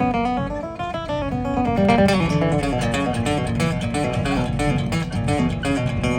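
Live band playing an instrumental introduction: a picked guitar melody, with low bass notes filling in about two seconds in.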